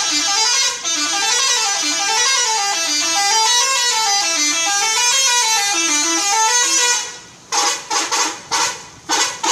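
Bus telolet horn playing a tune of stepped notes that climb and fall again and again for about seven seconds, then a string of short blasts near the end.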